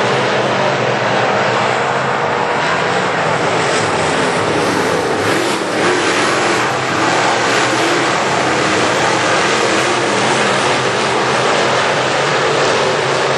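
A pack of GM crate-engine V8 dirt late model race cars running laps together, a loud, steady engine drone.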